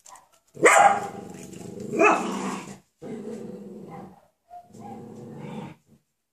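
Coton de Tuléar puppies, nearly six weeks old, barking and growling in play. A sharp bark comes about half a second in and another about two seconds in, each running on into growling, then two more stretches of growling follow.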